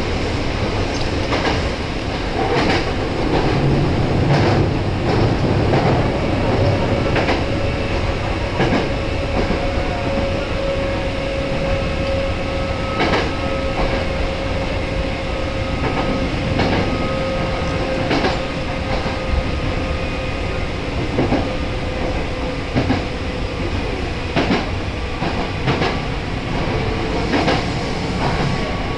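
Nose Electric Railway 1700-series electric train running along the line, heard from the front of the car: a steady rumble with irregular clicks of the wheels over rail joints and a steady tone held through the middle stretch.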